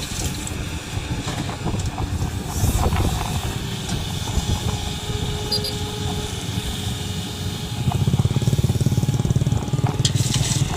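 Heavy diesel engine of an excavator running, a steady low pulsing that gets louder about eight seconds in as it works harder. A few short knocks and clanks over it.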